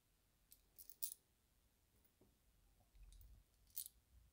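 Faint light metallic clicks from the parts of a BMW N42 exhaust VANOS unit being handled and fitted together by hand: a few clicks in the first second or so and one more near the end.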